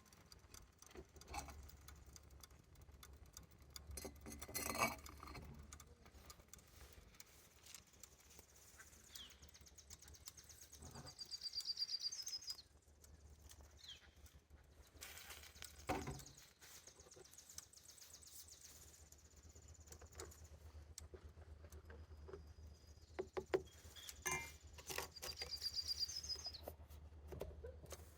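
Faint knocks and clatter of camp gear being handled, with a small bird's high trilled song heard twice, about twelve seconds in and again near the end.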